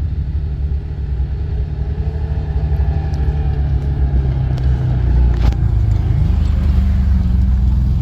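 ATV engine running under way with a heavy low rumble; the engine note climbs as it speeds up about six seconds in.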